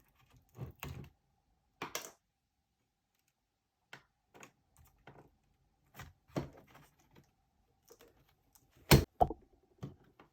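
Scattered plastic clicks and knocks from an old Asus laptop being taken apart by hand, with a sharper double knock about nine seconds in.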